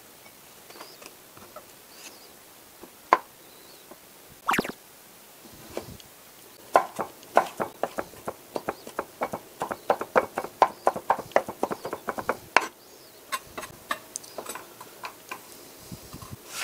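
Kitchen knife chopping a block of ham on a wooden cutting board: a quick run of sharp knocks, about five a second, lasting some six seconds in the middle, with a few scattered light taps before and after.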